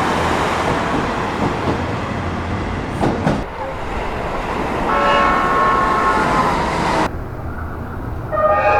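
Train running noise, then a limited express electric train's horn sounding one steady chord for about two seconds. A second horn with several tones starts near the end.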